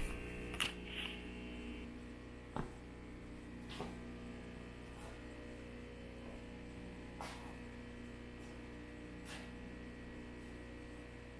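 Low steady electrical hum, with a few faint, slow footsteps on a hard floor, a soft tap every second or two. A loud cry breaks off right at the start.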